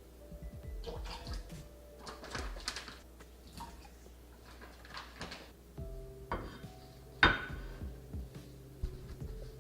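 Kitchen clatter of utensils and dishes: irregular knocks, clinks and scraping, with one sharp clink about seven seconds in. Faint background music underneath.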